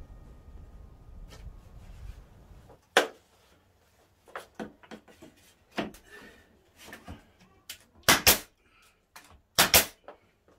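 Pneumatic brad nailer firing nails into door casing trim: sharp single shots spread through the last seven seconds, the loudest near the start of them and two close pairs near the end, with lighter knocks of the trim being pressed into place between. A steady low rumble fills the first three seconds.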